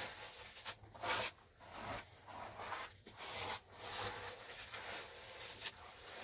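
Repeated rough scraping strokes, about two a second and uneven in spacing, the loudest about a second in.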